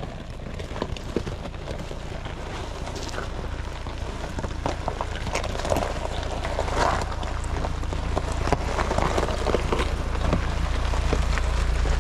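Ford Bronco creeping over loose rocks and gravel: its tyres crunch and crackle over the stones under a low engine rumble. It grows steadily louder as it comes close.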